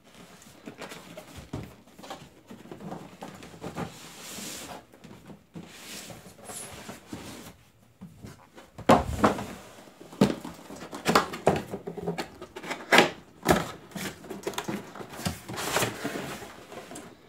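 Cardboard packaging being handled: a box slid out of its sleeve and its lid opened, with scraping, rustling and a series of knocks and taps, louder and more frequent in the second half.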